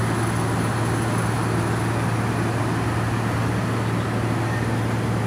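Steady low drone of an idling engine, one unchanging low hum with a faint hiss over it.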